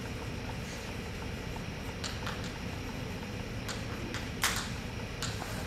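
Chalk tapping and scratching on a blackboard as words are written, in a few short sharp strokes, the loudest about four and a half seconds in, over a steady low room hum.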